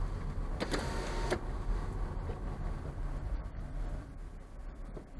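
Car cabin road and engine rumble as the car slows to a junction, fading about four seconds in as it comes almost to a stop. About a second in there is a brief mechanical whir, with a steady tone, lasting under a second.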